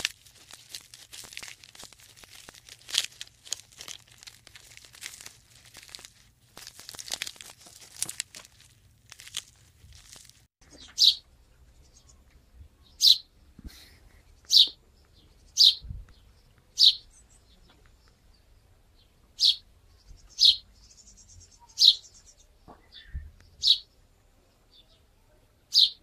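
For about the first ten seconds, a dry crackling rustle and crunching. Then a house sparrow chirps about ten times: single short chirps a second or two apart.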